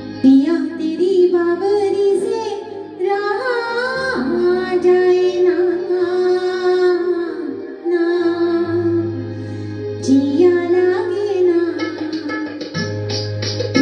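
A woman singing a Hindi film song into a handheld microphone over instrumental accompaniment, with long held notes and vibrato. Quick percussive strokes come in near the end.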